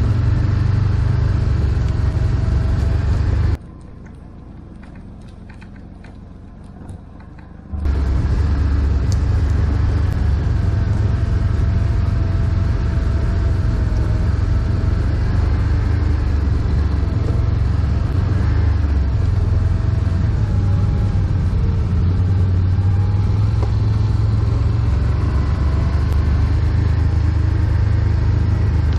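ATV engines running on a dirt trail, a steady low rumble with a faint wavering engine tone. A few seconds in the sound drops sharply to a much quieter level for about four seconds, then the rumble returns.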